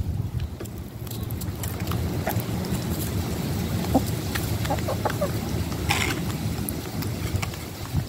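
Steady low rumble with scattered light ticks and taps: hens pecking at soft cat food. A short brighter scratch or rustle comes about six seconds in.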